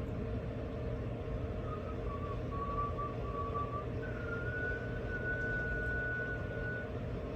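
Ambient devotional music: a steady low drone, with a faint, pure high melody note that comes in about two seconds in, steps up in pitch and holds for a few seconds.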